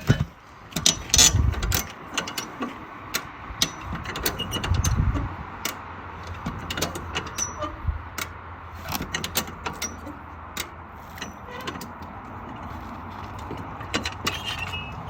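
Repeated metallic clanks, clicks and knocks of tools working on a rusted steel split rim, heaviest in the first couple of seconds, over a steady low hum.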